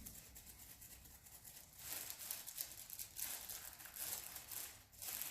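Faint, irregular rustling and crinkling from hands and a small body moving on the treatment table during a toddler's gentle neck adjustment, picking up about two seconds in.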